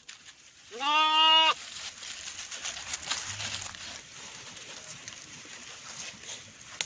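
A baby lamb bleating once, a single clear baa lasting under a second that starts about a second in, followed by quiet background noise.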